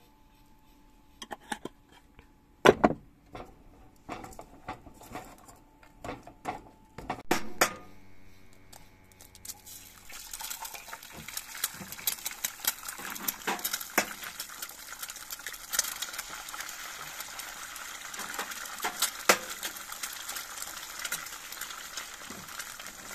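Knocks and clinks of a spice jar and wooden spoon against a cooking pot, then from about ten seconds in eggs frying in oil in a frying pan: a steady sizzle full of small crackles, with a few sharper clicks as more eggs go in.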